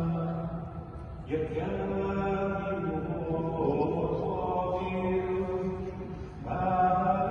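A man's voice chanting Byzantine-rite liturgical chant in long held notes, with short breaks about a second and a half in and near the end.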